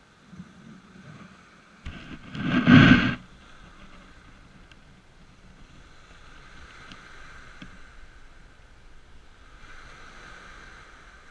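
Small waves washing onto a pebble beach, with one loud burst of noise lasting about a second, about two seconds in.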